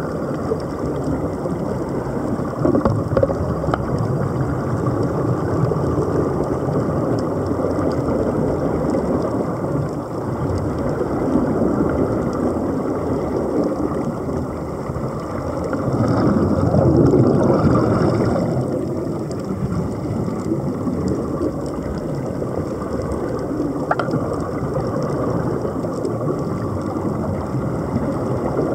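Muffled underwater rushing and bubbling from the air escaping the divers' surface-fed helmets, steady throughout and louder for a couple of seconds past the middle.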